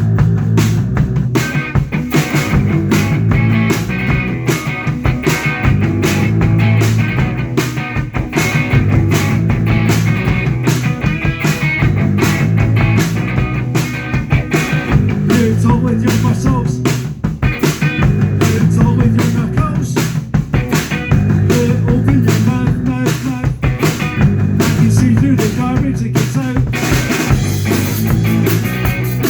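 Rock band playing: drum kit, electric guitar and bass at a driving, steady beat.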